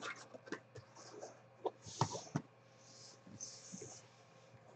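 Faint clicks and light knocks from an aluminium briefcase as its lid is swung open, with a few short soft scrapes as an encased card is slid out of the foam insert.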